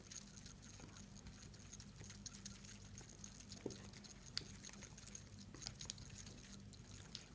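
Faint, irregular clicking and rattling of the Seiko 7S26 automatic movement's winding rotor swinging as the wrist moves. The rotor's centre screw is not fully tightened, so the rotor wobbles and knocks against the movement and case.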